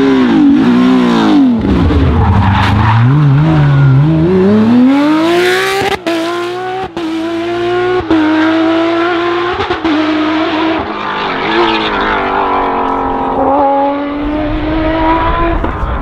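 Porsche 997 GT3 rally car's flat-six engine at high revs. The revs drop and pick up again over the first few seconds, then climb steeply and hold high through several quick gear changes.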